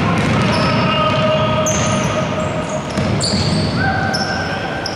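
Basketball game on an indoor hardwood court: the ball being dribbled and players' sneakers squeaking on the floor several times, echoing in a large gym hall.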